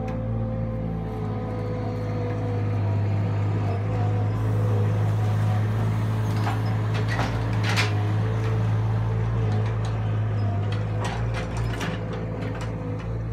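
Avant compact loader's engine running steadily as the machine drives past carrying a log in its grapple, a little louder midway. Several sharp clicks and knocks come from the machine, in two clusters: about halfway through and near the end.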